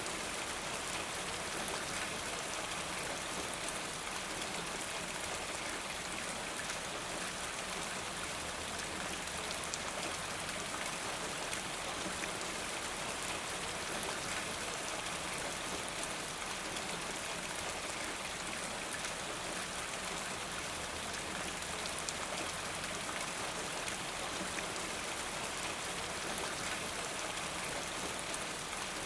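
Steady rain falling: an even hiss of rainfall with scattered individual drop ticks, unchanging in level throughout.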